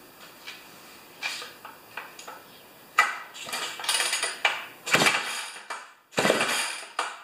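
Homelite XP 1020 two-stroke chainsaw engine being pull-started: from about three seconds in, three hard pulls of the starter rope about a second apart, each a loud, rattling turn-over of the engine.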